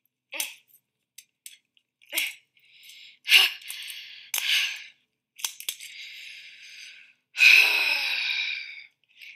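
Adhesive tape pulled off the roll to fix a hairbrush to a hand, in several rasping pulls. A few short rips come first, then longer pulls, and the loudest and longest lasts about a second and a half near the end.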